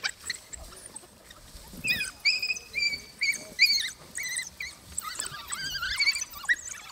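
African wild dogs (painted wolves) giving many short, high-pitched twittering squeals while jostling over food, starting about two seconds in and repeating until near the end.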